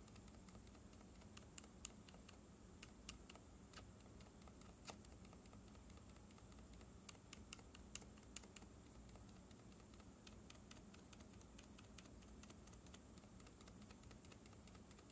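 Faint, irregular taps on mechanical keyboard keys with MX Zilent switches in Alias housings, each a soft click with a slight tick. The builder puts the tick down to wobble in the switch stem, which he thinks knocks the side of the housing when a key is hit off centre.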